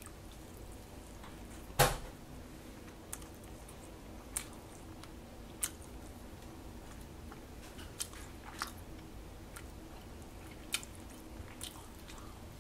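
A person chewing a mouthful of burger with the mouth closed: scattered soft clicks and smacks, with one sharp click about two seconds in.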